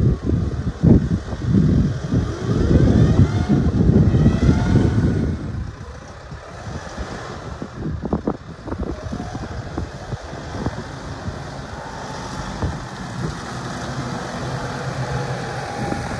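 New Holland T5.85 tractor's diesel engine running as the tractor drives along, its pitch rising and falling. Loud wind rumble on the microphone covers it for the first five seconds or so.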